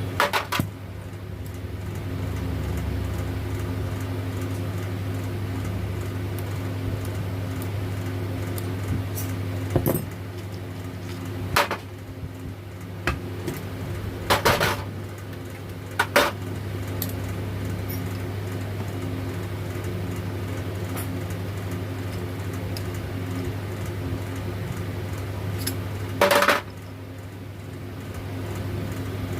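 Metal parts of a Bosch starter motor clinking and knocking as they are handled and set down during disassembly, about half a dozen sharp clanks spread over a steady low hum.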